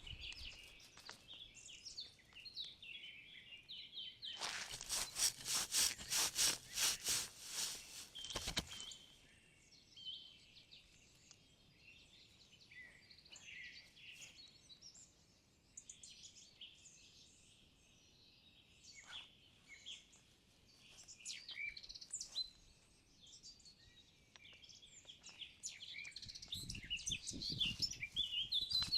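Woodland birds singing and chirping. From about four seconds in, a loud run of evenly spaced noisy strokes, about three a second, lasts roughly four seconds.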